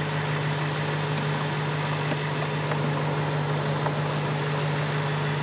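BMW 650i's N62 4.8-litre V8 idling steadily, heard from underneath the car. It is running so the freshly filled transmission fluid is at operating temperature while the fill plug goes back in. A few faint clicks come near the end.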